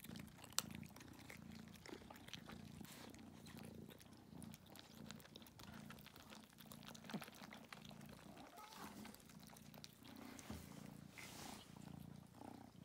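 A kitten purring softly close to the microphone, the purr swelling and easing in a regular rhythm with its breathing, with faint small clicks over it.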